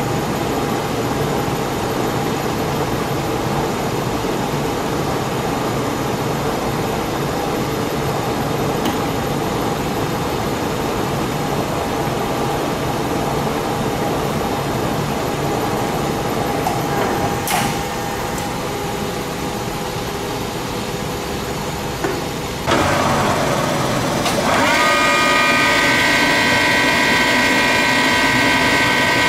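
1956 Warner & Swasey 3A saddle-type turret lathe running with a steady mechanical drone. A click comes about two thirds in, and then the spindle speeds up: a sudden louder burst of machine noise and a whine rising in pitch, which settles into a steady, louder gear whine.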